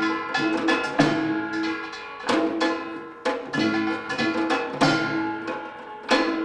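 Korean traditional percussion music: sharp drum and gong strokes roughly once or twice a second over ringing pitched tones.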